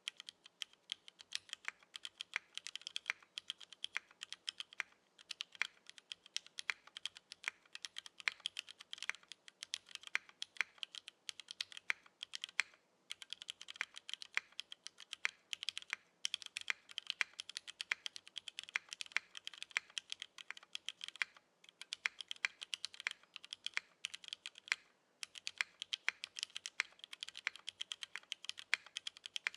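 Typing on a JJW Derivative custom mechanical keyboard with broken-in vintage Cherry MX Black linear switches, an aluminium plate and GMK Dot2 keycaps. The keystrokes come steadily and quickly, with short pauses about thirteen and twenty-five seconds in.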